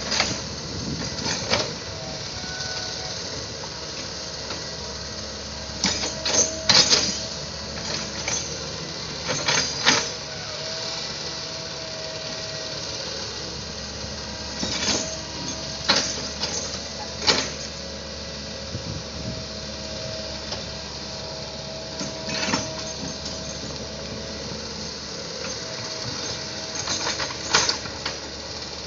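Hydraulic excavator running steadily with a held whine, broken every few seconds by sharp clanks and knocks, some in quick clusters, as it works the ground.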